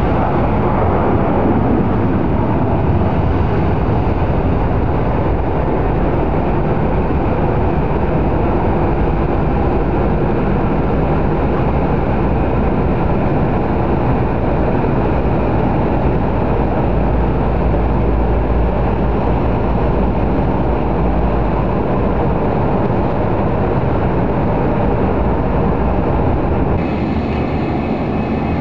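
Steady roar of airliner jet engines on an airport apron, with a deep rumble underneath. Near the end the noise drops slightly and changes in character.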